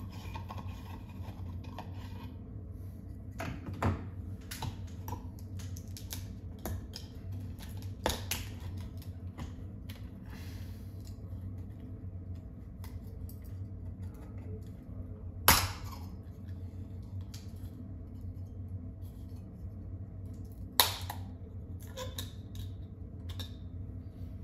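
Clicks, scrapes and light metallic rattles as an old recessed can light's trim and bulb are worked loose from the ceiling by hand. Two sharper snaps stand out, one past the middle and another toward the end, over a steady low hum.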